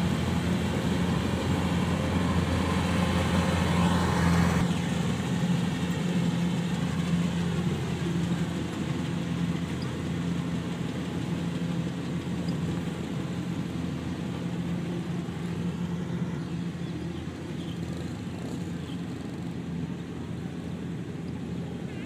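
Kubota DC-105 combine harvester running steadily while harvesting rice: a continuous diesel engine hum with the clatter of the cutting and threshing machinery. It is loudest in the first few seconds, then grows lower as the machine works farther away.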